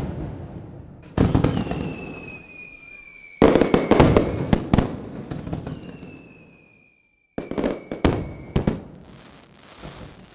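Fireworks going off: a series of sharp bangs, a stretch of rapid crackling about four seconds in, and two long whistles that slide slowly down in pitch between the bangs.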